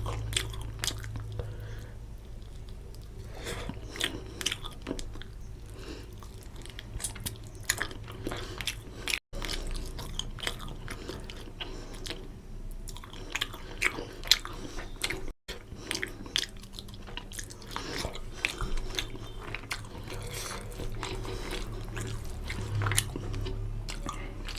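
Close-up chewing, biting and lip-smacking of a person eating rohu fish curry with rice, many short irregular mouth clicks over a low steady hum. The audio drops out for an instant twice.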